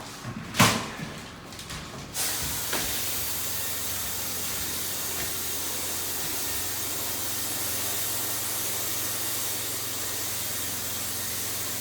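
A single knock about half a second in, then, about two seconds in, a Graco Pro Xp60 electrostatic spray gun is triggered and sprays with a steady hiss of atomizing air and paint.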